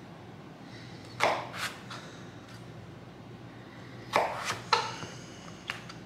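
A chef's knife slicing through a raw russet potato and knocking down on a wooden cutting board: two knocks a little over a second in, three in quick succession around four seconds in, and one more near the end, over a faint steady low hum.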